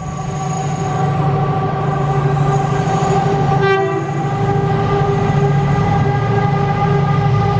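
Colas Rail Freight Class 70 diesel locomotive approaching under power at the head of a freight train: a deep diesel engine drone with a steady whine above it, growing louder over the first second. A short high note sounds about three and a half seconds in.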